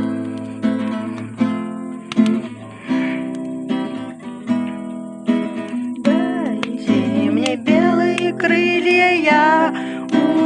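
Acoustic guitar strumming chords, with a voice singing a song in Russian joining about halfway through.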